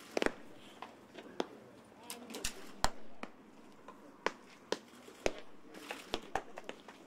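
Baseballs smacking into catchers' leather mitts during bullpen pitching: about a dozen sharp pops at irregular intervals, some overlapping, the loudest a little under three seconds in.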